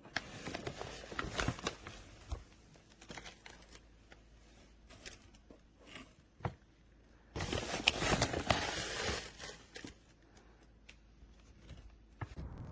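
Crinkling and rustling of something being handled, with many scattered clicks and a louder, denser stretch of rustling about seven and a half seconds in, lasting about two seconds.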